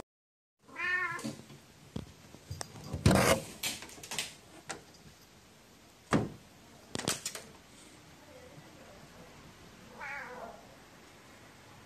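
A cat meowing: a short call about a second in and a falling call near the end. Several sharp knocks and clicks come in between.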